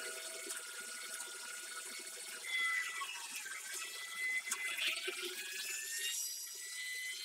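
Electric winch on a Jeep's front bumper running with a steady whine as it reels in and its line draws taut, over the sound of running water.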